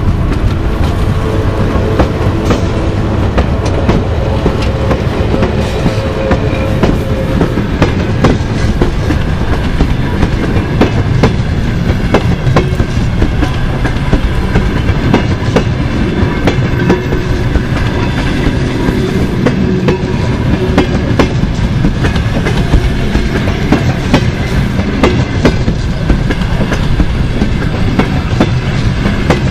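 Passenger coaches of a departing train, hauled by a ChS8 electric locomotive, rolling past close by. Their wheels knock and clatter over rail joints and points above a steady low rumble.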